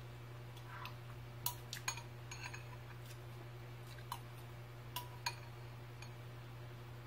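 Long metal spoon clinking against a ceramic bowl while scooping cereal and milk: several short, light clinks a second or so apart, over a steady low hum.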